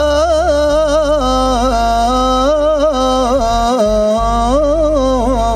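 A male singer's wordless, melismatic line in a Moroccan devotional song: long held vowels ornamented with quick bends and wavers in pitch, over a low sustained instrumental accompaniment.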